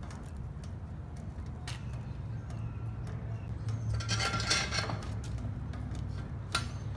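Steel tire tools clinking and knocking against a loader's steel wheel rim as a tool is set up on it: a sharp click early, a longer run of metallic clinks and rattles a little past the middle, and another click near the end, over a steady low hum.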